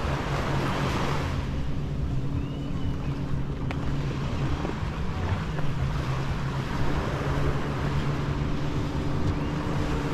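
Surf washing up the beach, loudest in the first second or so, over a steady low engine drone.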